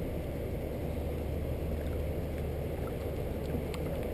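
Steady low rumble of wind on the microphone, with a few faint clicks near the middle and near the end.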